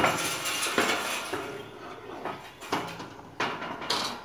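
Metal carport frame tubing clanking as a bow section is lifted and stood upright: a handful of sharp metallic knocks, the loudest at the start and about three and four seconds in.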